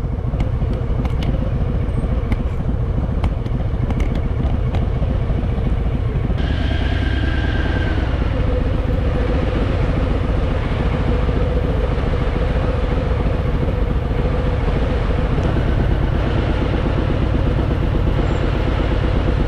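Harley-Davidson Fat Boy's V-twin engine idling steadily in stationary traffic. About six seconds in, a higher steady tone joins it.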